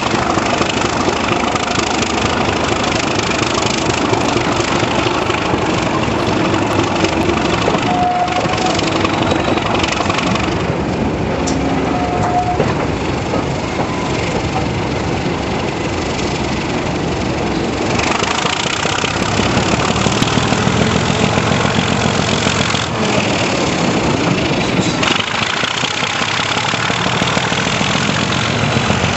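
British Rail Class 37 diesel locomotive's English Electric V12 engine working hard under power, mixed with rail noise and wind through the open window. Its deeper engine note grows louder about two-thirds of the way through, as the locomotive thrashes and puts out black exhaust smoke.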